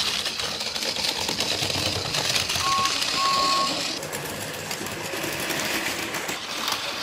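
Battery-powered Plarail toy trains running on plastic track: small motors whirring with rapid clicking of wheels over the track joints, quieter after about four seconds. A short beep and then a longer one sound near the middle.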